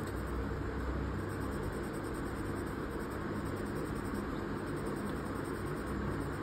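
Steady hiss of background noise, even throughout, with no separate strokes standing out.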